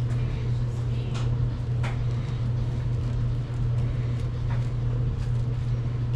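A steady low mechanical hum, with scattered faint clicks and ticks.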